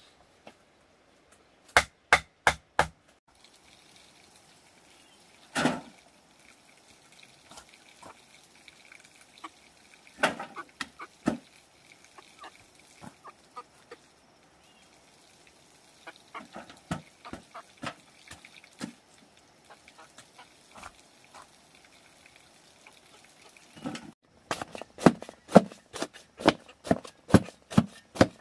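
Chopping on a wooden surface: a few scattered knocks, then from near the end a steady run of chops, about three a second.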